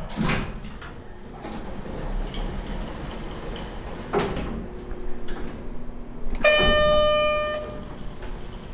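Elevator running with a low mechanical rumble, with a clunk at the start and another about four seconds in. Near the end a single pitched arrival tone sounds for about a second.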